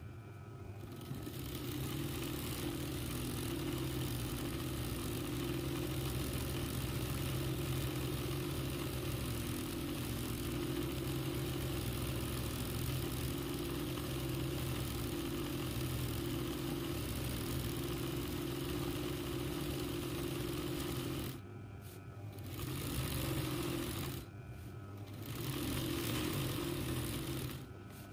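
RANEW 130 zigzag embroidery machine running steadily as it stitches free-motion embroidery, a steady hum. It stops about 21 seconds in, then runs again in two short spurts of a couple of seconds each.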